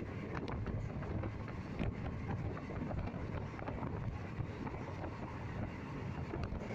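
Passenger train running at speed, heard from inside at an open window: a steady rumble of the carriage on the rails with scattered small clicks, and wind buffeting the microphone.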